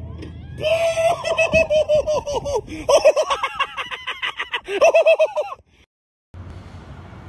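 High-pitched cackling laugh, rapid runs of 'ha-ha-ha' in three bursts, cut off abruptly about five and a half seconds in, followed by a moment of dead silence.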